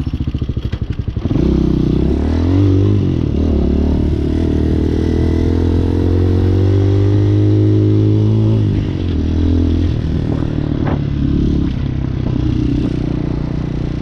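Motorcycle engine revving up from low revs as the bike pulls away and holding steady revs for several seconds. The revs drop back about eight and a half seconds in, then rise and fall a few times more.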